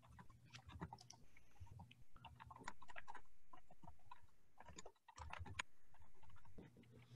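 Faint, irregular small clicks and taps over a low steady hum.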